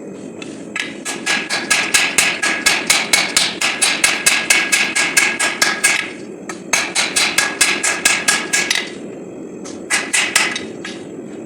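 Hammer forging hot 5160 steel on an anvil: quick, ringing blows at about four or five a second. There is a long run of blows, then after a short pause a shorter run, and a last few blows near the end.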